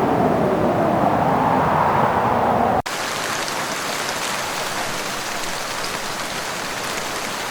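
A loud roar with a wavering, rising-and-falling tone that cuts off abruptly about three seconds in, giving way to the steady hiss of heavy hurricane rain.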